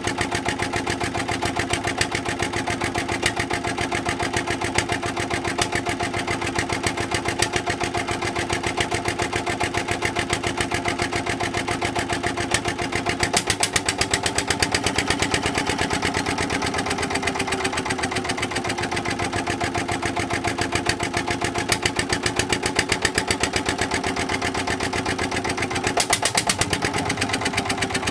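Petter AVA1 single-cylinder air-cooled diesel stationary engine running steadily with a rapid, even firing beat. About halfway through, as the speed control is adjusted, its speed picks up a little and wavers. Near the end there is a brief dip and recovery.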